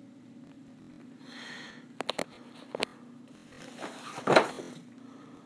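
Handling of a padded camo soft gun case and the shotgun on it: a brief rustle, three sharp clicks, then a longer scraping rustle with a loud knock near the end, over a low steady hum.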